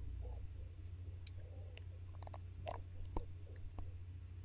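ASMRtistry One lipstick being applied to the lips close to a microphone, with scattered soft lip and mouth clicks.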